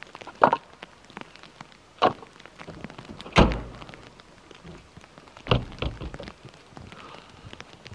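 Toyota Tacoma's rear camper-shell hatch and swing-out spare-tire carrier being shut by hand: a series of knocks and metal clunks, the loudest a deep thud about three and a half seconds in.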